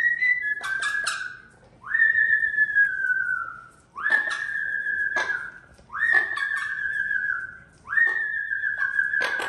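Amazon parrot giving long whistled cries, about one every two seconds, each a quick upward sweep into a long, slowly falling tone, with a few sharp clicks between. It is crying at a closed door to be let through to the house cat.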